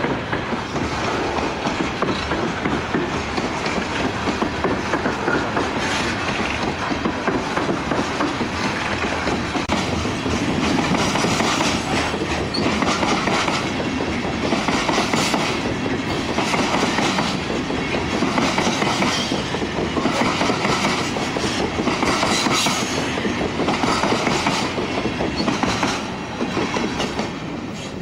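Freight train of open-top coal cars rolling past close by: a steady rumble with regular wheel clatter over the rail joints, getting quieter near the end.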